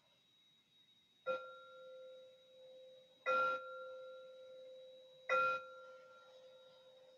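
A meditation bell struck three times, about two seconds apart, each strike ringing on at one steady pitch and fading slowly. It marks the end of a short guided meditation.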